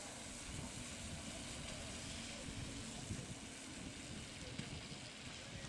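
Wind buffeting the microphone over a steady hiss of rain and tyres, as cars pass on a wet road.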